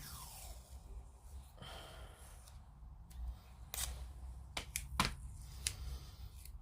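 Small handling sounds from working on a plastic model kit: a soft rustle, then a handful of sharp little clicks and taps, the loudest about five seconds in.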